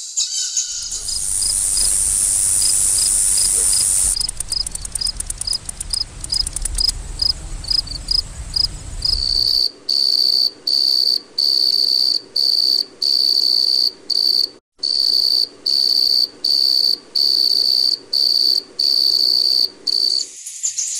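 Crickets chirping: a fast run of short chirps with a low hum under it, then from about ten seconds in longer chirps repeating a little over once a second.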